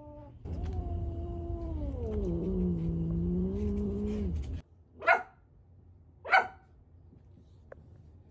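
A cat yowling: one long drawn-out call of about four seconds that drops in pitch partway through, followed by two short, sharp, loud cries.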